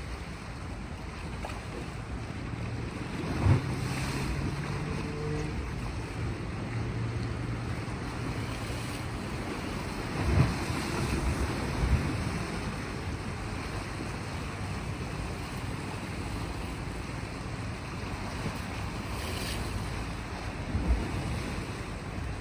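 Sea ambience: small waves washing on a rocky shore under steady wind noise on the microphone, with a few low buffeting thumps. A faint low drone is also present for several seconds near the start.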